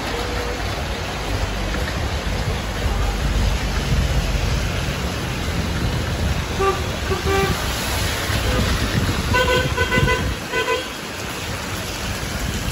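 Road traffic on a wet street: vehicle engines running and tyres hissing on the wet road, with a car horn tooting twice about six and a half seconds in and a run of short horn beeps around nine to ten seconds in.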